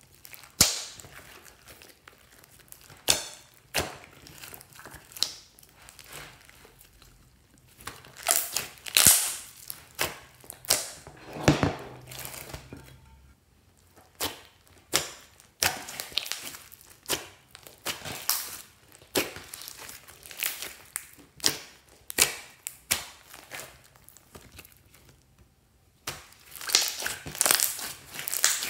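Slime being squished, stretched and folded by hand, giving irregular sharp pops and crackles, busier in some stretches than others.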